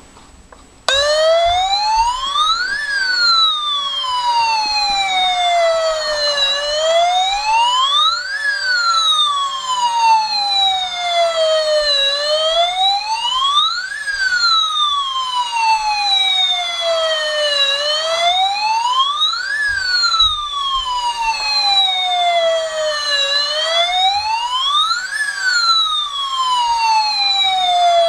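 Toy fire truck's electronic siren switching on about a second in and wailing slowly up and down. Each rise and fall takes about five and a half seconds.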